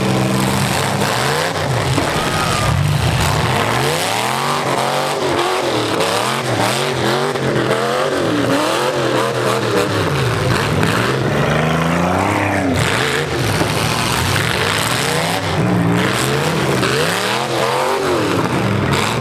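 Several demolition derby cars' V8 engines running unmuffled through exhaust pipes up through the hoods, revving up and down over and over as the cars manoeuvre and charge.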